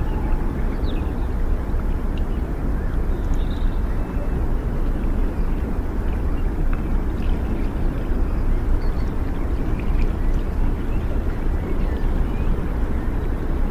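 Outdoor ambience: a steady low rumble with faint short high chirps scattered through it.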